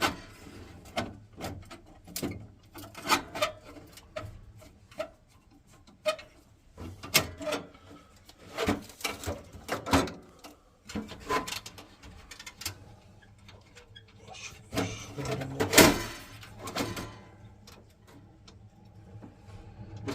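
Irregular clicks, taps and scrapes of a screwdriver and small metal parts being handled inside an open boiler casing during electrode lead work, with one louder knock about three-quarters of the way through.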